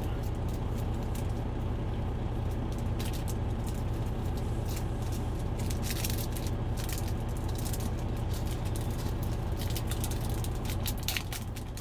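Steady low engine hum, with scattered light clicks and rustles of trading cards and plastic sleeves being handled.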